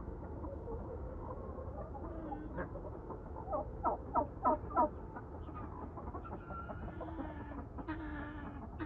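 Flock of chickens clucking, with a run of four loud, sharp calls in quick succession a little before the middle.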